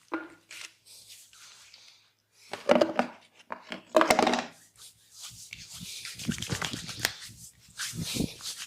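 Hands rubbing and working over skin and clothing in a massage, a run of irregular rubbing and brushing sounds. Two loud, short voice-like bursts come about a third and half of the way through.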